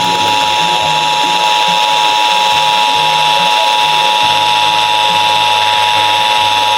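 Emergency Alert System two-tone attention signal, two steady tones sounding together, received off the air from an FM station. It marks the start of an EAS required monthly test.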